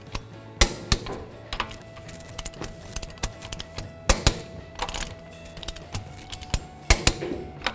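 Click-type torque wrench on a 21 mm socket tightening wheel lug nuts to a preset 87 foot-pounds in a star pattern: quick ratchet ticks and sharp metallic clicks as the wrench releases at the set torque, with clinks as the socket goes from nut to nut.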